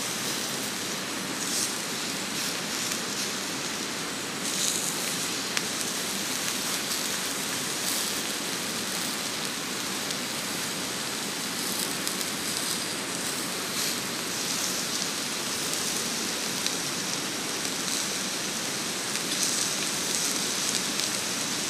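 Meat slices sizzling on a hot griddle plate over a canister gas stove: a steady hiss with brief louder spatters now and then.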